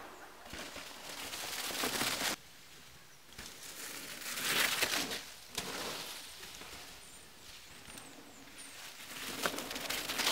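Tyres of a Canyon Sender downhill mountain bike rushing through dry fallen leaves and loose dirt as it passes, in three swells of hiss: one cut off abruptly about two seconds in, one around four to five seconds, and one near the end.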